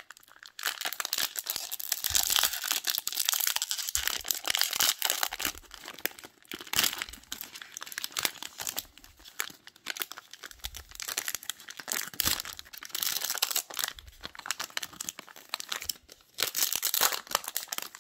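Plastic wrapper of a Topps baseball card pack being torn open and crumpled by hand: an irregular crinkling and tearing crackle made of many sharp ticks.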